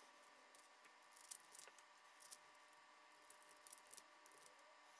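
Near silence broken by a few faint, light clicks as steel cutter discs and spacers are slid off a paper shredder's cutter shaft and set down.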